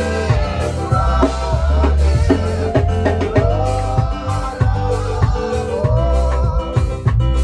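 Live church worship band playing, with drums and a heavy bass under sustained chords, in an instrumental stretch between sung lines of a hymn.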